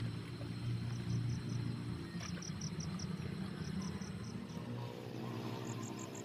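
Cricket chirping in short runs of quick pulses, over background music with sustained low notes that change a little before the end.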